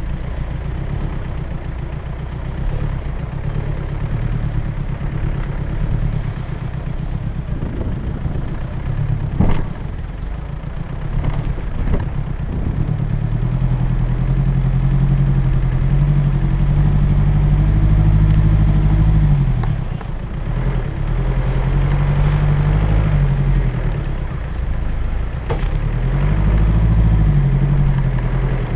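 Land Rover Discovery 1 engine running while driving over rough off-road ground, its revs rising and falling several times in the second half. A few sharp knocks come through about ten and twelve seconds in.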